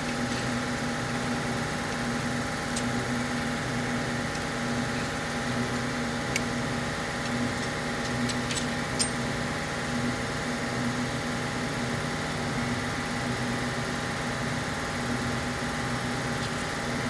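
A steady motor hum, with a few sharp metallic clicks from a socket wrench working the engine's crankcase bolts.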